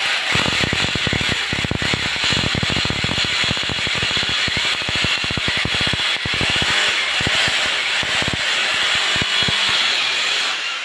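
Hammer drill boring through a glazed ceramic wall tile, a steady whine over rapid hammering, stopping at the very end.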